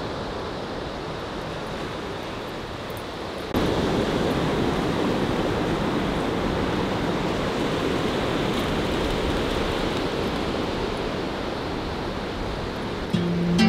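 Ocean surf washing up a sandy beach, a steady rushing hiss that gets suddenly louder about three and a half seconds in.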